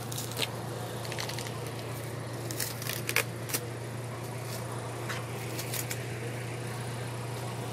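A delivery vehicle's engine idling as a steady low hum, with scattered light clicks and knocks, the sharpest about three seconds in.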